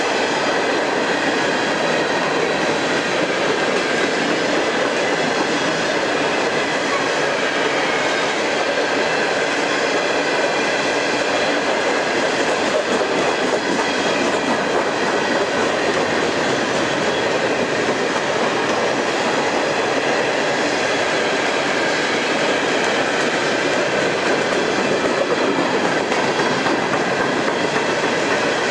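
Covered hopper cars of a freight train rolling past at close range: a steady, unbroken rumble and clatter of steel wheels on the rails, with faint ringing tones above it.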